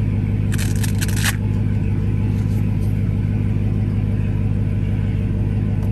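Dodge Hellcat's supercharged V8 idling steadily, heard from inside the cabin. A brief rustle of handling comes about half a second in.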